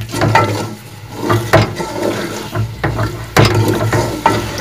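A spoon stirring raw chicken pieces through hot oil and spices in a large metal pot, scraping and knocking against the pot in irregular strokes, over the sizzle of the chicken frying as it begins to brown.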